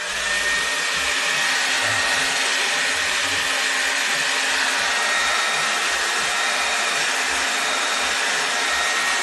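Handheld hair dryer switched on and blowing steadily: a loud, even rush of air with a thin steady whine. It is heating the adhesive under a camera's leather skin to loosen it.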